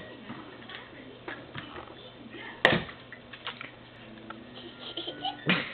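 A toddler eating in a high chair: scattered small taps and knocks of a sippy cup and food on the tray, with one sharp loud knock about halfway through. Near the end comes a short, low vocal sound from the child.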